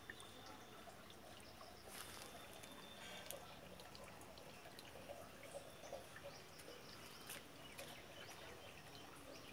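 Near silence: faint background ambience with a few light clicks.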